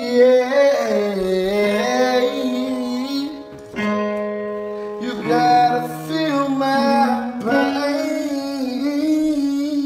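A song with a singing voice holding long notes and sliding between them over musical backing, with a short break about three and a half seconds in.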